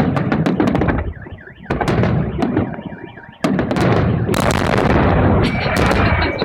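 Fireworks salute shells bursting overhead: heavy booms with crackling, a fresh loud volley about two seconds in and another a little before halfway, each dying away into rumbling echo.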